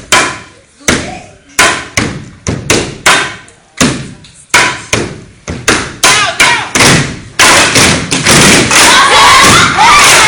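Step team stomping and striking sticks on a hard floor in a sharp rhythmic pattern, the hits coming faster toward the middle. From about seven and a half seconds in, a crowd cheers and shouts loudly over the steps.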